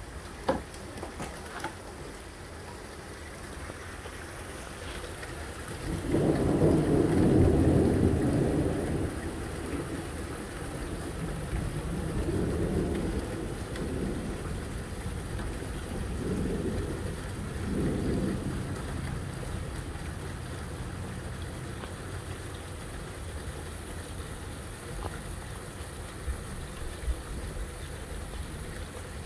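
Rolling thunder over steady rain: a loud low rumble starts about six seconds in and lasts a few seconds, then rolls on in several weaker swells and fades.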